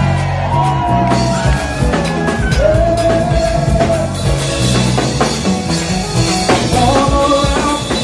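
Live band music: a Pearl drum kit played in a steady groove under a bass line, with a held, sliding melody line on top.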